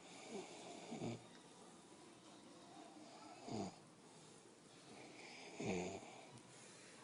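Snoring: three snores about two seconds apart, each falling in pitch.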